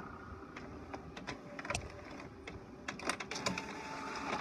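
HP Officejet 4500 inkjet printer at work: irregular mechanical clicks and light rattles from the paper feed and print carriage, with a steady motor whine joining in about three seconds in.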